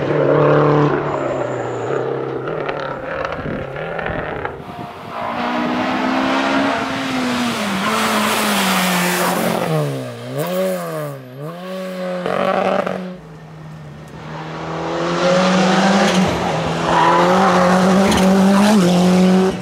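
Historic rally car engines at full throttle on a special stage, revving hard and changing gear; about halfway through the engine note swoops down and up twice as the driver lifts and gets back on the throttle. The engine grows loudest near the end as a car comes close past the roadside.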